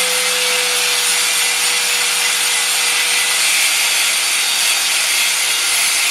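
Small electric grinder grinding steadily: an even hiss of the disc on the part, over a steady motor whine that sags slightly under load.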